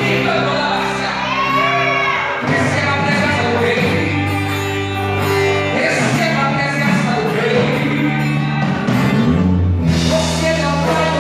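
A live worship band playing, with a voice singing gliding, held lines over sustained bass notes.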